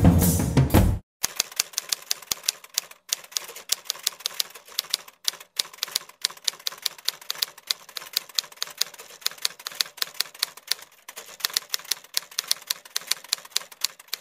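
Typewriter sound effect: a rapid, irregular patter of key clicks at several a second, keeping time with text being typed out onto a title card, with a short pause near the end. Background music fades out about a second in, before the clicking starts.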